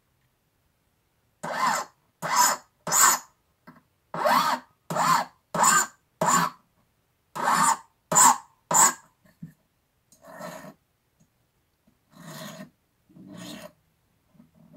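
Hand file stroking across the end of a copper wire to file it square for a rivet: about a dozen evenly paced strokes, then, after a short pause, three fainter, slower ones.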